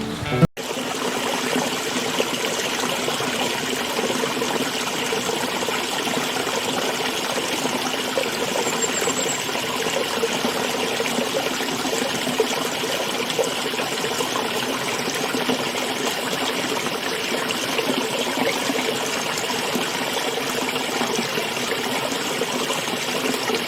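Running water flowing steadily, like a stream, with a brief break about half a second in.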